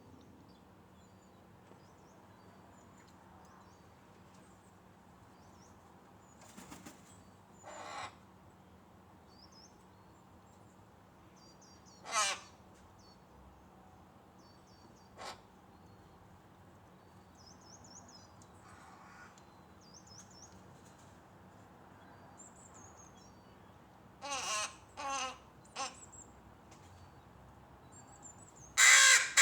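Corvid cawing: a few single harsh caws spaced several seconds apart, then a quick run of three, and the loudest caws at the very end. Faint small-bird chirping can be heard between the caws.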